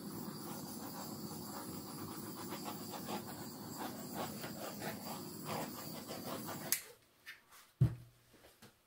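Handheld butane torch flame hissing steadily as it is passed over wet acrylic paint, cut off with a click about seven seconds in. A single soft knock follows about a second later.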